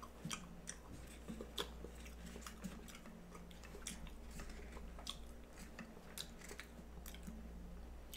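A person chewing a mouthful of food, with soft wet mouth clicks and smacks at uneven intervals, over a steady low electrical hum.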